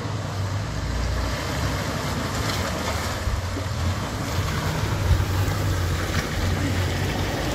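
Low, steady engine rumble of a Toyota Land Cruiser crawling slowly through a shallow stream crossing, with wind noise on the microphone.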